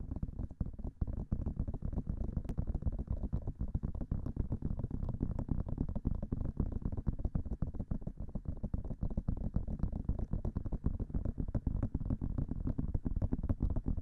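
Fast fingertip and fingernail tapping on the silicone ears of a binaural microphone, heard as a dense, even stream of dull, muffled taps, many to the second.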